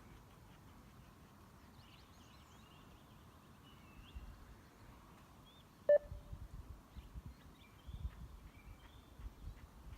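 A single short electronic beep from the beep-test recording about six seconds in, signalling the start of the first shuttle run, followed by irregular low thumps of running footsteps.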